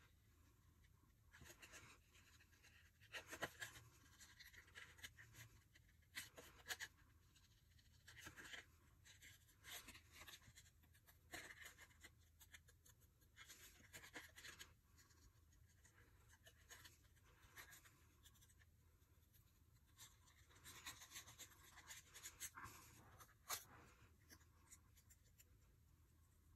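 Small scissors snipping through thin cardstock in short, irregular cuts while fussy-cutting small stamped shapes; faint overall.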